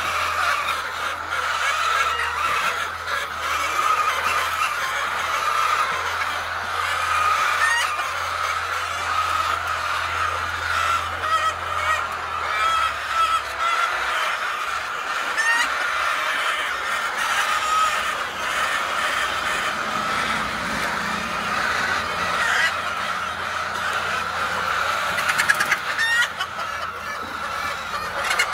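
Many birds, likely a large flock of poultry, calling over one another in a continuous chatter. A low steady hum underneath stops about halfway through.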